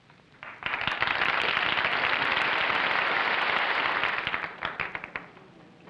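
Studio audience applauding. It swells up about half a second in, holds, then thins to a few last scattered claps and stops near the end.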